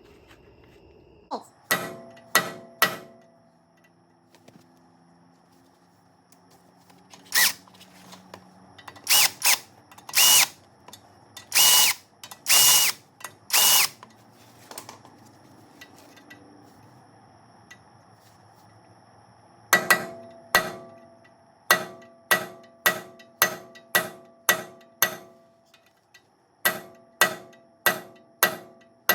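Hammer blows on a brass punch driving the cone washers out of a Toyota locking hub, each a sharp ringing metallic strike. Four quick blows come near the start. In the middle there are several longer, half-second bursts, and from about two-thirds of the way in a steady run of blows comes at roughly two a second.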